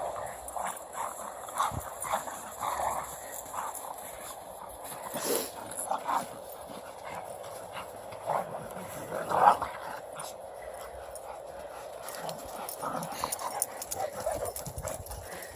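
Dogs playing rough, with whines and short vocal sounds at irregular moments, the two loudest about five and nine and a half seconds in.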